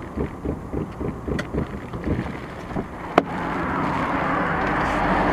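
Road and wind noise inside a moving car, with low uneven thumps. About three seconds in there is a sharp click, and then a hiss builds steadily louder.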